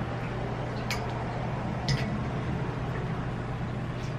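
Two light clicks of spoons against ice-cream tubs, about one and two seconds in, over a steady low hum.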